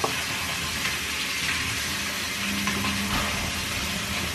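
Tap water running steadily into a sink while makeup brushes are washed, an even hiss throughout.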